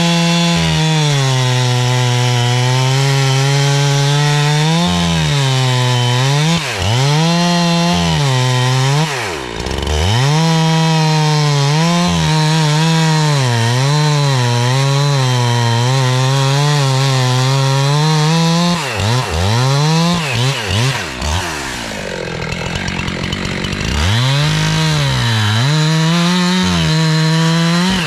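Chainsaw running at high revs in a cut, its pitch sagging and recovering again and again as it bogs under load. For a couple of seconds past the twenty-second mark the engine note gives way to a noisier rush before the saw picks up again.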